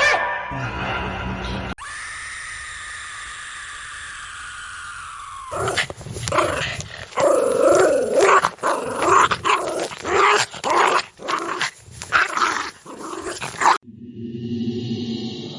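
Horror sound effects in sequence: a steady eerie tone with faint gliding pitches, then a ghostly growling, snarling voice in short choppy bursts, and near the end a low chant-like drone begins.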